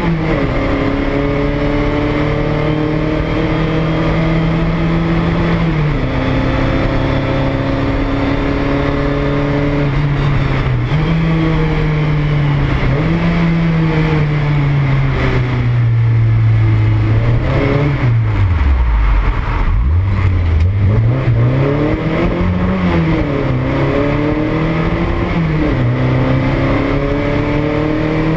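Porsche 924 race car's engine heard from inside the cabin, its pitch rising and falling with the throttle, dipping low about two-thirds of the way through before climbing again.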